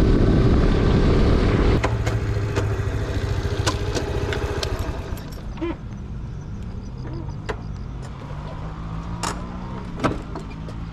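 Honda Super Cub 90's single-cylinder four-stroke engine heard while riding. Loud engine and wind noise drops suddenly a couple of seconds in as the bike slows, leaving a quieter engine note with scattered sharp clicks.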